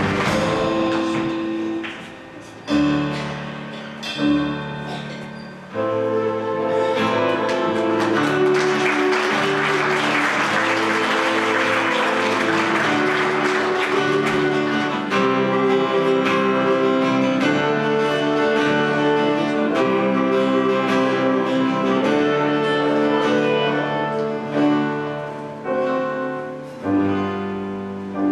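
Live stage music from a school musical's finale medley, with an acoustic guitar among held, sustained notes that change in steps. The music drops away briefly about two seconds in and again about five seconds in, then carries on steadily.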